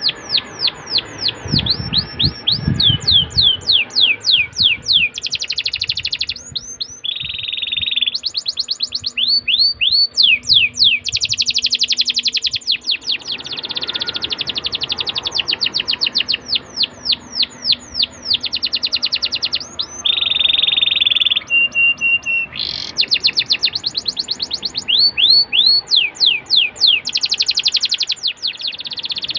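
Domestic canary in full song: long, fast runs of rapid downward-sweeping notes, broken twice by buzzing trills and once by a short clear whistle.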